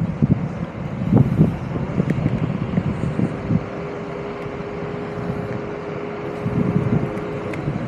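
Wind buffeting the microphone on a moving electric scooter, in uneven gusts. A steady hum holds one pitch from about two and a half seconds in until shortly before the end.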